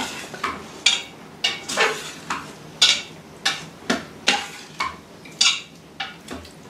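A spoon stirring chicken pieces through sauce in an Instant Pot's stainless steel inner pot, clinking and scraping against the metal about twice a second at uneven intervals.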